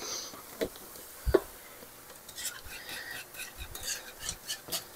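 Cream sauce being stirred in a pot, a utensil scraping and tapping against the pan in a run of quick strokes through the second half. A single knock comes about a second in.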